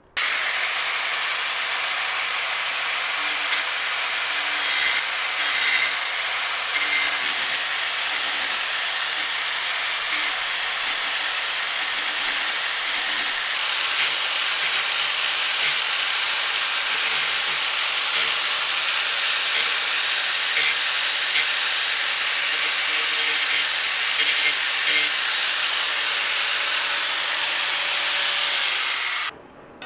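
Makita angle grinder grinding the edge of a steel lawnmower blade to sharpen it: a loud, steady, high-pitched grinding hiss with small scratchy variations as the disc works along the edge. It cuts off suddenly near the end.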